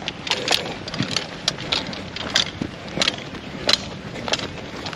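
Running footsteps of a speedgolfer: a string of uneven, quick knocks and scuffs, several a second.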